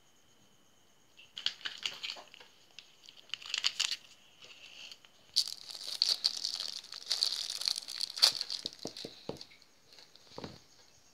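Thin plastic packet crinkling and crackling in irregular bursts as it is handled and squeezed, with a few light knocks near the end.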